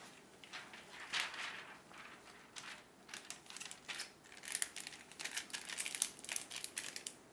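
Irregular soft rustling and crinkling with many scattered light clicks, busier in the second half.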